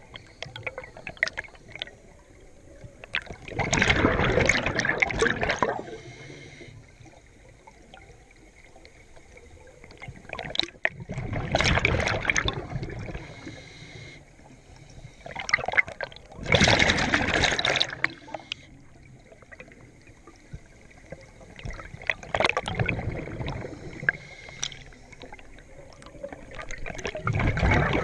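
Scuba diver breathing through a regulator underwater: a loud rush of exhaled bubbles every five to six seconds, five times in all, each lasting one to two seconds.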